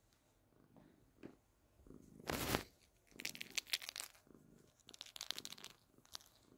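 A cat purring softly, broken by a loud brushing rustle about two seconds in and then two spells of crinkling and rustling.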